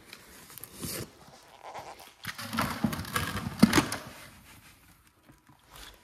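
Worm castings being scooped from a bulk bag with a plastic pot and tipped into a plastic bucket: irregular scraping, rustling and knocks. The loudest stretch is about two and a half to four seconds in.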